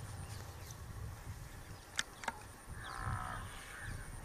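Herd of wild Asian elephants with calves, giving low rumbling calls and a short higher-pitched call about three seconds in. Two sharp clicks sound about two seconds in.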